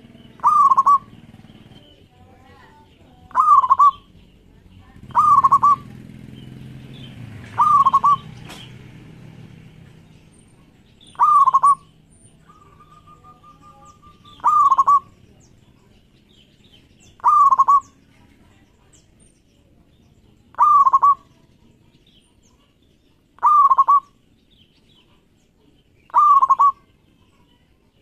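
Local-strain zebra dove (perkutut) cooing: a short, clear call repeated ten times, about once every three seconds.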